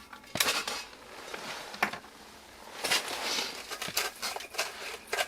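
Rustling and clicking handling noises from fitting a single-burner propane stove onto a small propane cylinder, in irregular bursts with a few sharp clicks.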